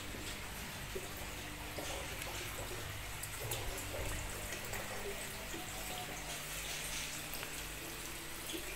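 Water trickling and pouring steadily, with no breaks.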